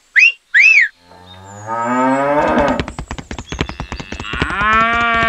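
Two short whistles, then a cow mooing twice: a long moo rising in pitch and a second moo near the end, with rapid clicking under the second.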